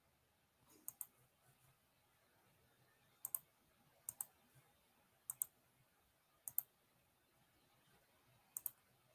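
Computer mouse clicking: about six quick double clicks spaced irregularly through near silence.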